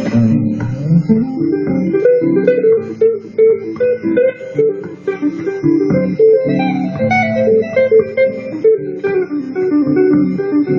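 Electric guitar played through a Zoom G2Nu multi-effects pedal: a rapid run of short single notes, picked and fretted up and down the neck, with no pause.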